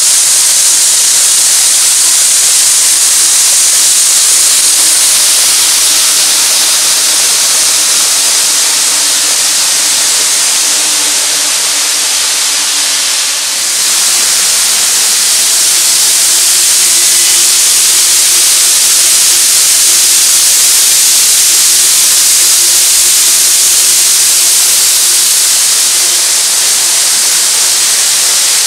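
N gauge model trains running on the track: a steady hiss of small wheels rolling on rail, with a faint motor hum underneath. The sound dips briefly about halfway through and then goes on as before.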